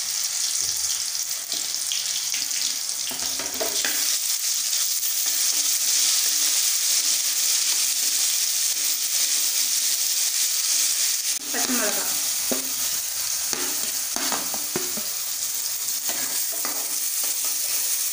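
Hot oil sizzling steadily in a kadai as ginger-garlic paste and fennel seeds fry, with a spatula stirring and scraping the pan a few times. Chopped onion and a green chilli go into the oil partway through.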